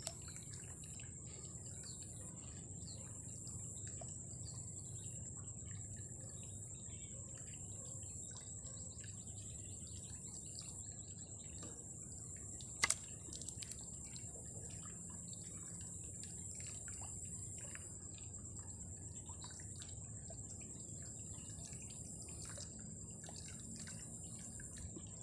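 Quiet outdoor ambience: faint bird chirps over a steady high-pitched drone, with one sharp click about halfway through.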